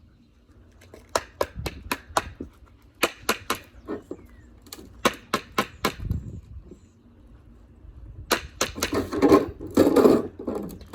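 Rapid, irregular runs of sharp knocks and clacks from objects being struck on purpose to make noise, with a louder, rougher clattering stretch near the end.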